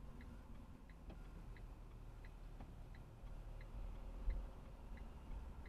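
Car turn-signal indicator ticking steadily, about three ticks a second, over low engine and road rumble inside the cabin. A single low thump comes about four seconds in.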